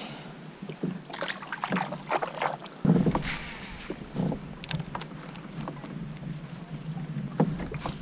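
Water splashing as a small northern pike is dropped back into the river beside a plastic kayak, then scattered knocks and clicks of gear and handling on the hull, with one heavier knock about three seconds in.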